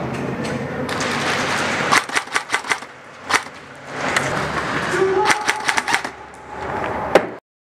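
Airsoft guns firing: quick runs of sharp snapping shots, one burst about two seconds in and another about five seconds in, with single shots between, over muffled voices and movement noise. The sound cuts off suddenly near the end.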